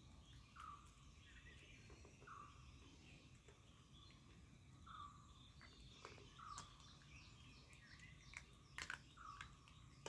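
Faint sounds of a small dog eating dry kibble from a stainless steel bowl: a few sharp clicks and crunches in the second half, the loudest about nine seconds in. Birds chirp in the background, one with a short call repeated every couple of seconds.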